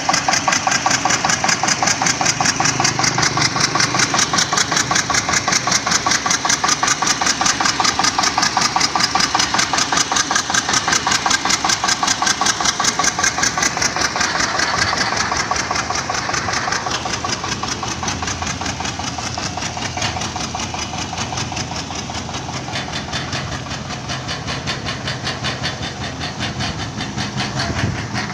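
Turbocharged single-cylinder horizontal diesel engine of a công nông farm truck idling with a rapid, even chugging. It gets a little quieter about halfway through.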